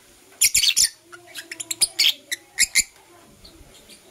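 Lovebirds chirping: a quick cluster of sharp, high-pitched chirps about half a second in, then scattered single chirps for about two more seconds.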